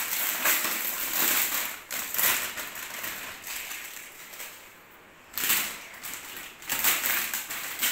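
Clear plastic packaging crinkling and rustling as it is handled and opened, with a brief lull about four seconds in before the crinkling starts again.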